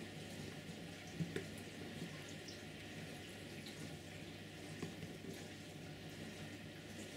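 Faint crackling of a soldering iron melting solder and flux on a small motor terminal while a wire is desoldered, with two small clicks about a second in, over a steady low hum.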